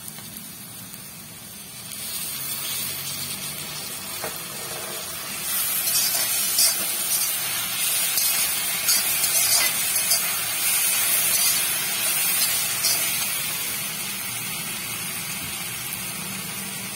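Vegetables sizzling in a hot iron kadhai as soy sauce goes in and they are tossed with a slotted steel spatula, which scrapes against the pan. The sizzle swells about two seconds in, is loudest through the middle with quick scrapes, then eases off.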